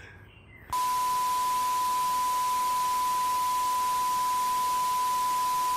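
A steady 1 kHz beep, the test-pattern tone that goes with TV colour bars, cuts in about a second in and holds over a hiss like static.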